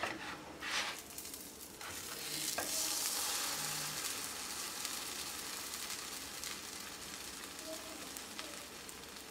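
Butter sizzling under a sandwich of buttered bread frying in a nonstick pan, just after it has been flipped. A few soft handling sounds come first, then the sizzle swells about two seconds in and settles to a steady hiss.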